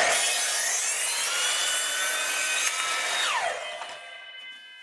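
Evolution R255 SMS-DB+ sliding mitre saw, fitted with its multi-material blade, cutting through a wooden board in a compound mitre cut for about three seconds. After about three seconds the cutting noise stops and a whine falls sharply as the blade comes out of the wood and winds down.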